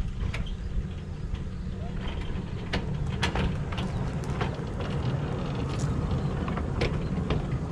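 Narrow-gauge diesel locomotive engine running with a steady low rumble, with scattered sharp clicks over it.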